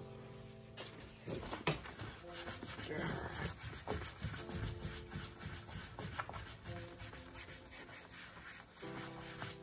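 Paper towel rubbed quickly back and forth by hand over a jet ski's gelcoat hull, scrubbing at old decal residue. The rapid rubbing starts about a second in.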